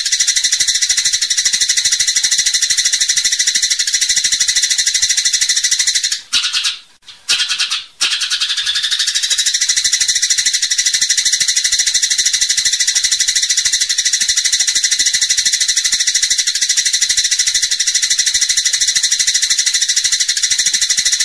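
A continuous, high, rapidly pulsing trill from a masteran song-tutoring recording, holding one steady pitch. It breaks off about six seconds in and resumes about two seconds later, briefly sliding up in pitch.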